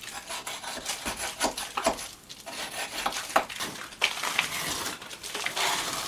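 Old wallpaper and plaster remnants being torn and scraped by hand off a log wall: a run of short, irregular rips and scrapes that thicken into a denser rustling in the second half.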